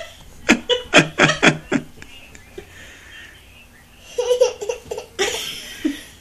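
Young girl laughing in a quick string of short bursts. Near the end comes a pretend sneeze: a held 'ah' breaking into a noisy 'choo'.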